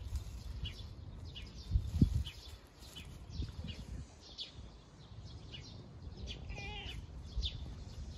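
A calico cat gives a short meow about two-thirds of the way through, while birds chirp repeatedly. A low thump about two seconds in is the loudest sound.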